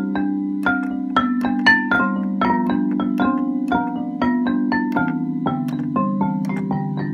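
MIDI-triggered MainStage software synthesizer playing a fast arpeggiated pattern. Short notes come in quick succession, about four or five a second, over lower held tones. Each key pressed on the keyboard is echoed into a run of different notes by the Bars & Pipes Arpaggi-8 MIDI delay tool.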